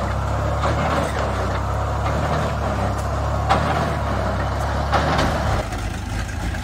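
Engine of an old truck-mounted Bucyrus-Erie 20-W cable-tool drilling rig running steadily at a low idle, with a couple of short knocks; the hum changes about five seconds in.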